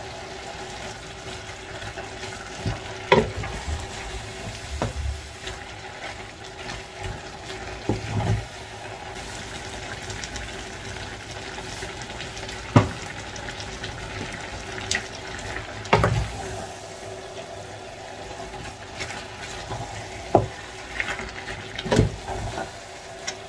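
A pot of meat stew with spinach and kale sizzling and simmering on the stove, with a sharp knock now and then as a spoon strikes the pot during stirring.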